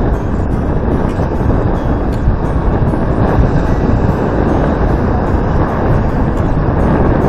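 Strong wind buffeting the camera microphone: a loud, steady, low rumble.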